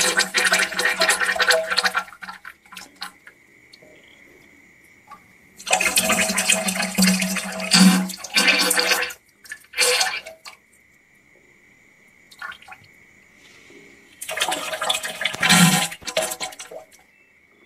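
A person farting: three long wet farts of two to three seconds each, about six and fourteen seconds in, with a short one near ten seconds. The title ties them to a stomach ache and diarrhoea.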